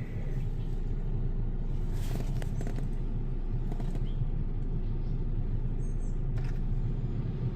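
Tesla Model Y's HVAC blower fan running steadily, with air blowing out through the open cabin-filter housing while the filters are removed: a wind-like blowing, with a few faint clicks.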